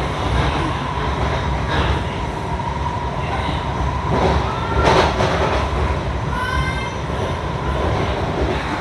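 Washington Metro train running, heard from inside the passenger car: a steady low rumble of wheels on track under a steady motor whine. A louder clatter comes about halfway through, and a brief rising whine follows a couple of seconds later.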